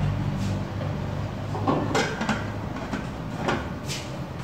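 Kitchen handling clatter: several separate knocks and clicks of utensils and cookware being moved, the busiest cluster about two seconds in, over a steady low hum.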